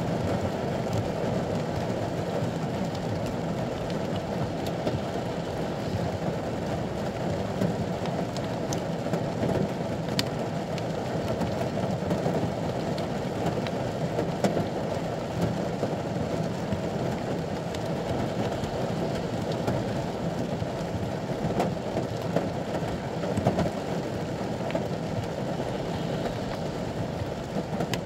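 Rain falling steadily on the roof of a ute, heard from inside the cabin, with a few sharper ticks standing out.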